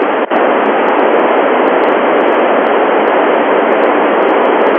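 Loud, steady FM static from the Icom IC-9700's receiver, the satellite downlink hissing with no readable voice on it, with a brief break about a quarter second in.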